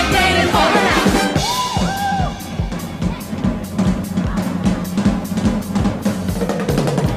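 Instrumental break in a live swing number: a drum kit plays snare, bass drum and rimshots over a steady bass line, with no singing.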